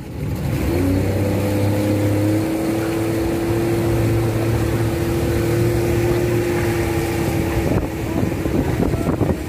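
Motorized outrigger boat's engine running under way, rising in pitch about a second in and then holding a steady note, easing off near the end, with wind and water noise.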